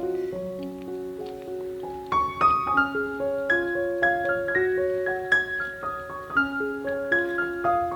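Background piano music: a gentle melody of single ringing notes, getting busier about two seconds in.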